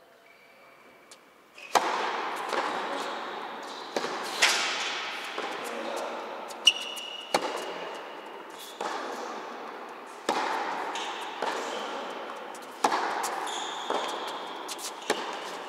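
Tennis rally: rackets striking the ball and the ball bouncing on the court. Sharp hits come about every second to second and a half, starting about a second and a half in, each ringing out in a large echoing hall.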